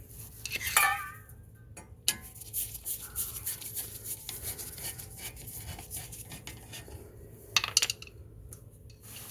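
Metal clinks and taps as a brake rotor is seated on the hub and its small retaining screws are handled and fitted, with a ringing clink about a second in and a few sharper knocks near the end.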